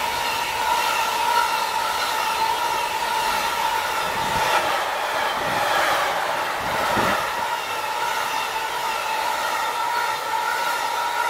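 Intermodal freight train of pocket wagons carrying lorry semi-trailers rolling past at speed: a steady rumble of wheels on rail with a constant high hum over it.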